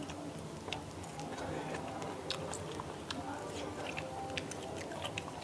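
A man chewing food, with scattered light clicks of metal chopsticks against dishes over a faint murmur of background voices.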